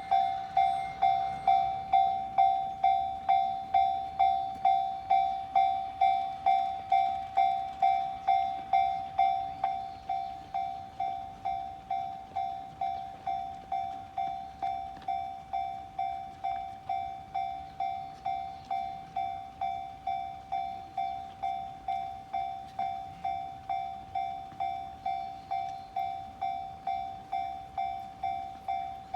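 Japanese railway level-crossing warning bell ringing, one clear electronic tone repeating about twice a second, warning that a train is coming or passing. It drops in level about ten seconds in.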